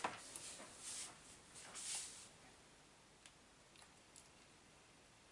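Small RC truck parts being handled and fitted by hand: a sharp click at the start, three short scratchy rustles in the first two seconds, then a few faint ticks.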